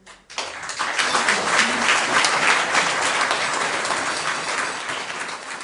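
Audience applauding, rising quickly in the first second and slowly dying away near the end.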